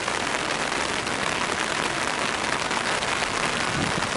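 Steady rain falling on wet pavement.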